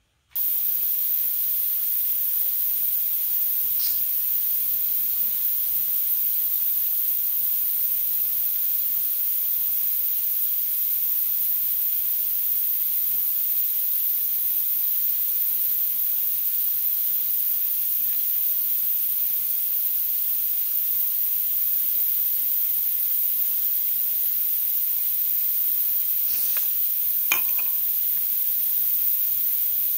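A steady high-pitched hiss, with a few faint clicks and taps of small wooden and metal knife-handle pieces being handled, once near the start and a cluster near the end.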